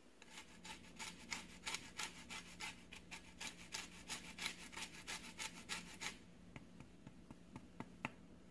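Lemon peel being grated on a fine zester: quick rhythmic scraping strokes, about four a second, that stop about six seconds in, followed by a few faint ticks.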